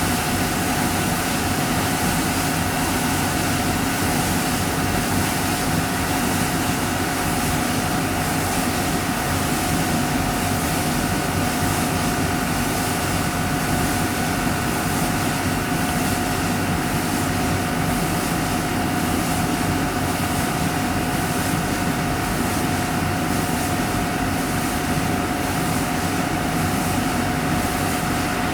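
Well-drilling machine running steadily: an unbroken engine drone with a steady whine on top.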